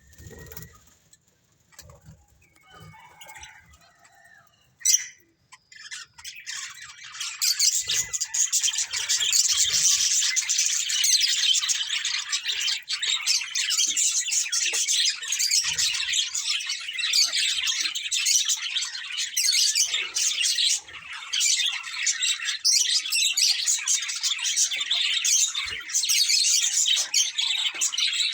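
Budgerigars chirping and chattering: a few faint scattered calls and one sharp click about five seconds in, then from about six seconds in a dense, continuous chatter.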